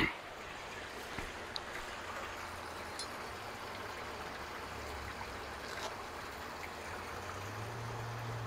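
Steady running and trickling water from a koi pond's water feature, with a faint low hum that swells twice.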